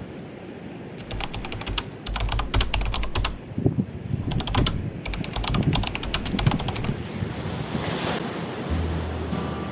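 Waves washing against the shore and wind buffeting the microphone, with runs of quick, sharp clicks through the first half.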